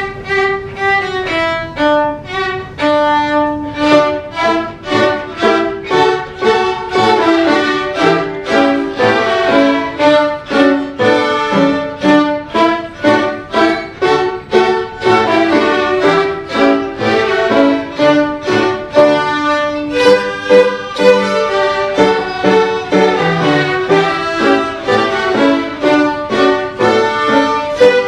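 An ensemble of children's violins playing a lively tune together, many short bowed notes in a steady, even beat.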